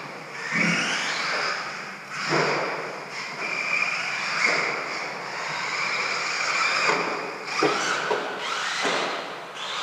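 Radio-controlled stadium truck running on a dirt track: a high motor whine that rises and falls as the throttle is worked, with several short loud surges.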